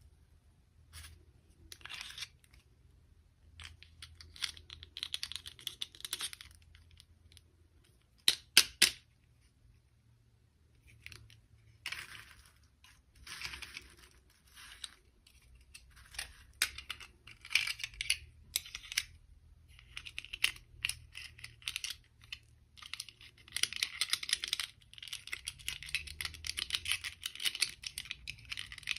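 Toy packaging being handled and opened by hand: irregular bursts of rustling and tearing with sharp clicks, the loudest a quick pair of clicks about a third of the way in, and steadier rustling near the end.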